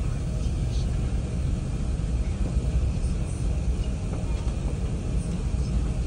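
Steady low rumble heard inside the upper-deck cabin of an Airbus A380 as it taxis after landing, with a faint hiss and a few small ticks over it.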